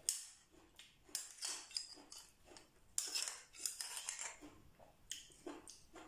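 Metal spoon scraping and clicking against a scallop shell as the scallop meat and dipping sauce are scooped out, in a run of short, irregular scrapes and clicks.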